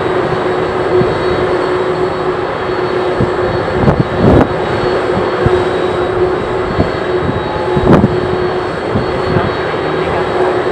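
Boeing 767-300 jet engines running on the ground: a steady rush of noise with one steady tone through it. Wind buffets the microphone in two brief gusts, about 4 and 8 seconds in.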